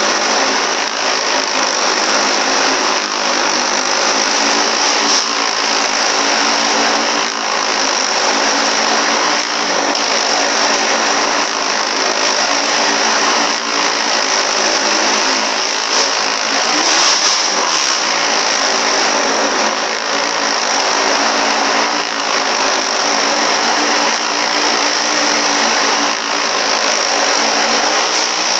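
Motorcycle engine running loud and steady while riding the wall of a wall-of-death barrel, with a harsh, unbroken exhaust note.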